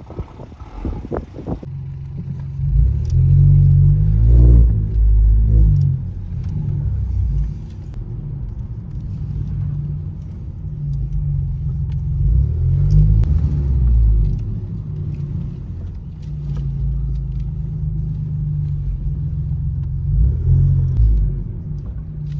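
BMW F20's B38 three-cylinder turbo engine, with a downpipe and stage 1 tune, pulling the car through a slow manoeuvring course. The revs rise in short surges about three times, between steadier stretches.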